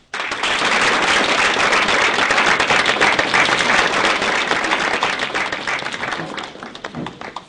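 Roomful of students applauding, starting all at once and dying down near the end.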